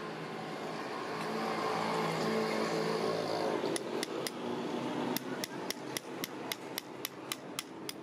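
Small hammer tapping a nail into a bull's hoof claw: light, sharp strikes, three at first, then after a brief pause a steady run of about four a second. Before the tapping, a steady background hum swells and fades.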